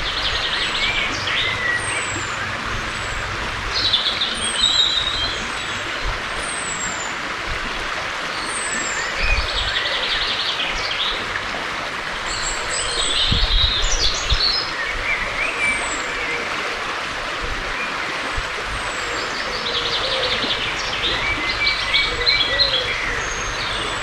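Woodland songbirds singing loudly: song phrases with fast trills come again every few seconds, with thin high notes in between, over a steady rushing noise.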